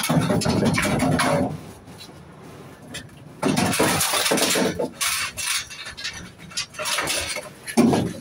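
Scrap metal clattering and clanking in several noisy bursts, with quieter gaps between them.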